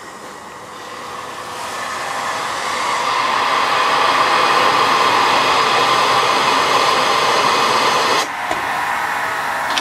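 Compressed air hissing steadily through the air system of a 1906 H.K. Porter compressed-air mine locomotive. The hiss builds over the first few seconds, then drops sharply about eight seconds in and carries on more quietly.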